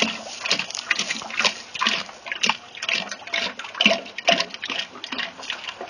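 Frying oil pouring from a boxed container's spout into a tall aluminum turkey-fryer pot, splashing in uneven surges into the oil already in the pot; the pour eases near the end.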